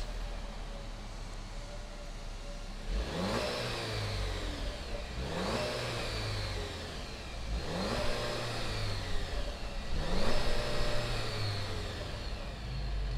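A 2019 Jeep Cherokee Trailhawk's 2.0-litre turbocharged inline-four idling through its dual exhaust, then revved four times, each rev rising in pitch and falling back to idle.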